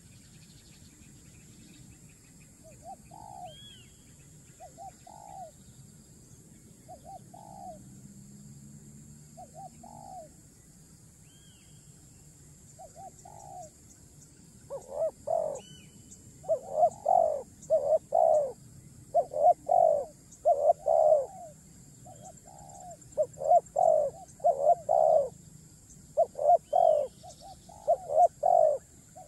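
A bird's low cooing calls, short downward-arching notes mostly in pairs, faint at first and much louder from about halfway, over a steady high insect hiss and a few faint high chirps.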